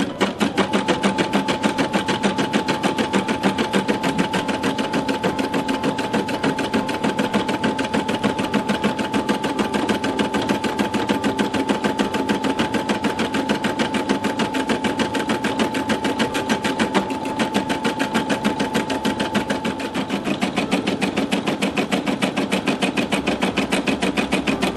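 Brother computerized embroidery machine stitching out a word in blue thread: the needle hammers in a fast, very even rhythm, starting right at the beginning. A steady high whine runs under it and drops away about twenty seconds in while the stitching goes on.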